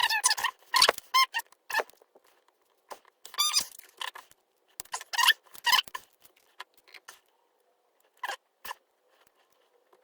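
Small metal lock parts squeaking and clicking in short clusters as a pin-tumbler lock is handled and taken apart.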